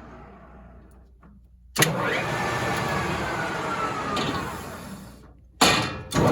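Kent TRL-1340 geared-head lathe running, its headstock gears whining. The sound comes in abruptly about two seconds in, and the whine falls in pitch as the noise fades away over a few seconds. Near the end it comes in abruptly again, twice.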